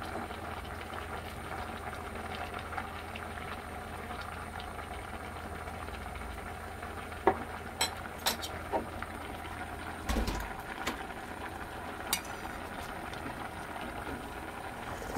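Kimchi jjigae bubbling at a steady boil in a stainless steel pot. A few sharp clicks stand out in the second half.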